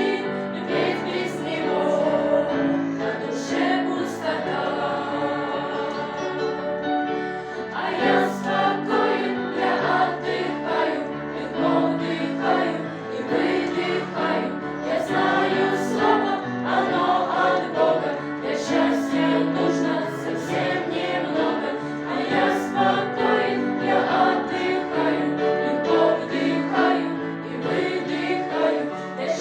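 Choir singing a song in harmony, many voices holding and changing chords.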